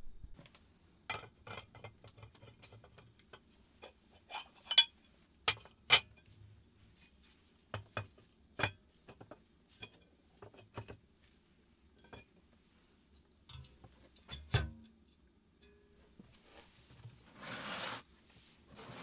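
Metal parts of a wood-burning cookstove being handled: an irregular run of sharp clinks and knocks from the cast-iron hotplate and its fittings, a few of them louder, then a scraping rub lasting about a second near the end.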